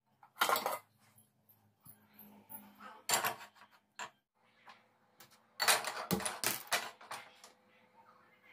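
Stainless steel pans clanking and knocking as one is taken down from a wall rack and set on a gas stove: a loud clank about half a second in, another around three seconds, and a quick run of knocks around six to seven seconds.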